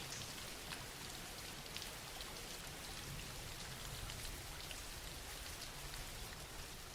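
Soft, steady rain, a faint even patter of drops with no thunder.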